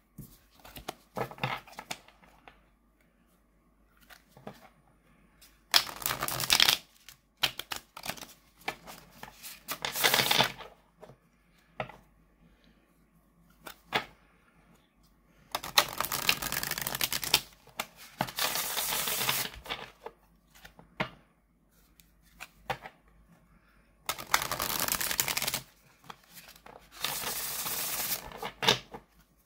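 A Magical Creatures Tarot deck being shuffled by hand. There are about six bursts of rapid card flutter, each a second or two long, as the deck is riffled and bridged. Between the bursts come quieter taps and slides as the cards are squared.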